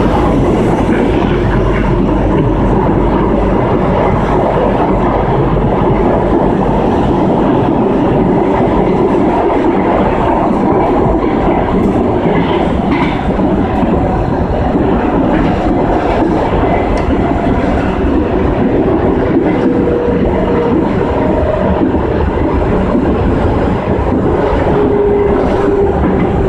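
CAF FE-07 metro train running at speed, heard from inside the driver's cab: a loud, steady rumble of steel wheels on the rails. In the last several seconds a faint whine steps down in pitch.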